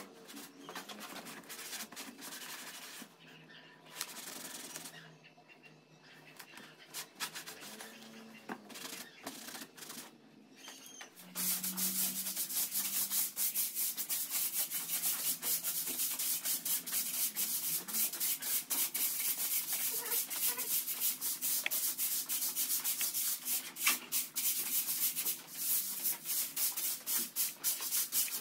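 Rapid scraping and rubbing strokes on a surface, quieter and broken at first, then steady and louder from about eleven seconds in.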